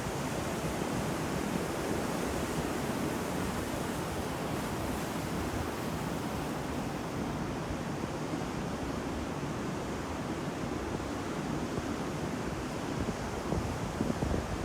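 Ocean waves breaking on the shore in a steady, continuous wash of surf, with a few louder surges near the end.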